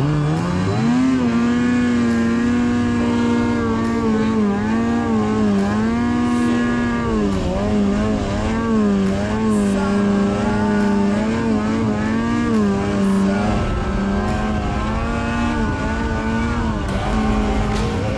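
Snowmobile engine under throttle, its pitch rising and falling again and again as the sled ploughs through deep powder, then holding steadier with a heavier low rumble near the end.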